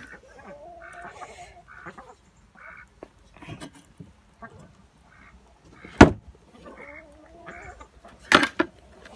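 Chickens calling, short repeated notes and low wavering murmurs. A hard knock about six seconds in and a quick cluster of knocks a couple of seconds later, the loudest sounds, from the small muck shovel and bucket.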